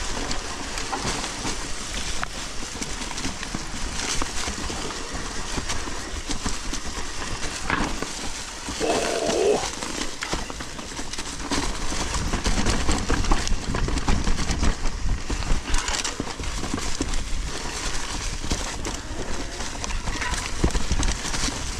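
Mountain bike being ridden along a dirt trail: tyres running over the ground, with the bike's chain and frame rattling and clattering over bumps and wind rumbling on the camera microphone.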